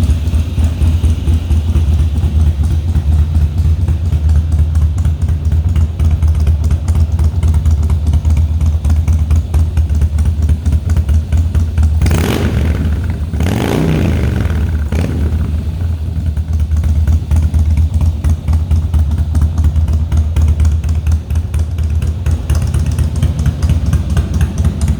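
Harley-Davidson Twin Cam 103 V-twin engine of a 2017 Softail Slim running at a steady idle with its low, even pulsing beat. About halfway through it swells briefly as the pitch shifts, then settles back to idle.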